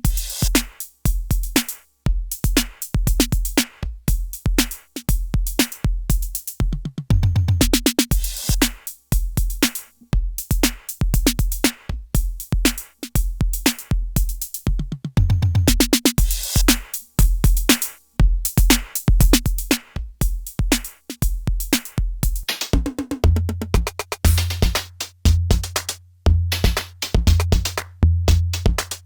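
IK Multimedia UNO Drum analog/PCM drum machine playing a programmed beat of kick, snare and hi-hat hits, with quick rolls twice. Near the end the pattern changes and a held low bass boom runs under the beat.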